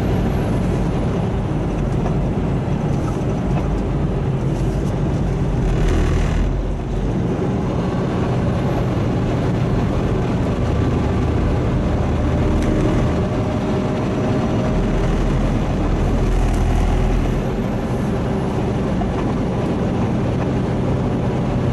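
Semi truck's diesel engine running steadily under load on a mountain climb, heard from inside the cab as a low drone mixed with road noise, with a brief hiss about six seconds in.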